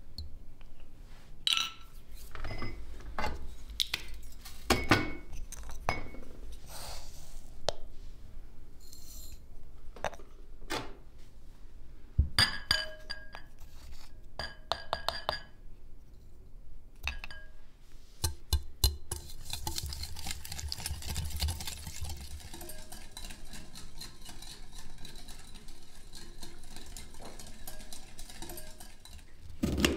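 Kitchen clinks and taps: eggshells and a spoon knocking against a glass mixing bowl, ceramic bowls and a glass jar, with short ringing clinks of glass, as eggs are separated and a powder is spooned out of a jar. From about two-thirds of the way through, the taps turn into a denser run of fine rapid ticking.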